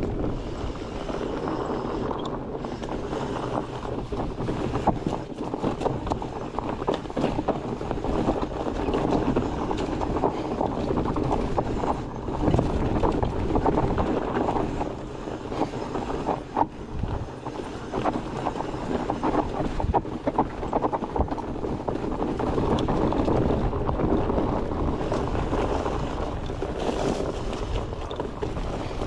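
Mountain bike rolling over a dirt trail: steady tyre rumble on the dirt with frequent rattles and knocks as the bike jolts over bumps, and some wind on the microphone.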